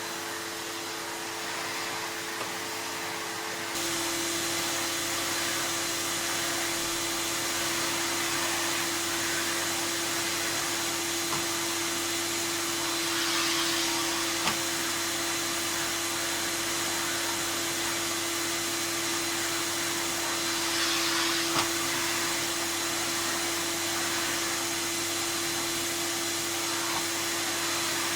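Spinney RA1 de-luxe 900 cylinder vacuum cleaner, fitted with a replacement Electrolux motor, running with a steady whine and rush of air. About four seconds in its pitch rises and it gets louder, and it then runs on evenly, with a couple of brief clicks later.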